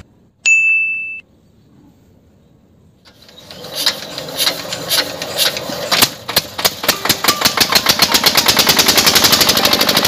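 A short ding about half a second in. Then, from about three seconds in, a small engine starting up: slow, uneven puffs that quicken into a fast, steady putter.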